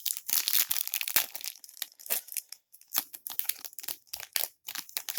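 Trading card pack wrapper being torn open and crinkled, an irregular run of crackles.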